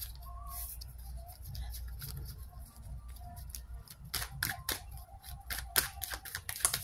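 Tarot cards being handled and shuffled: a low hum at first, then from about four seconds in a quick run of soft, dry clicks and snaps.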